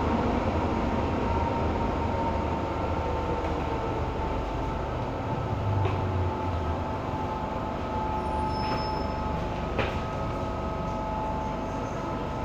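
MTR M-Train (Metro-Cammell electric multiple unit) heard from inside the car running through a tunnel: a steady rumble of wheels and running gear with a steady whine and a couple of light clicks. The sound eases slightly toward the end as the train nears a station.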